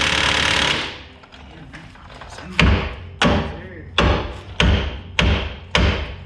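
An impact wrench buzzes for just under a second and stops. After a short lull, a hammer strikes metal six times, about one and a half blows a second, each with a brief ring, hammering on a bolt that the mechanics suspect is seized.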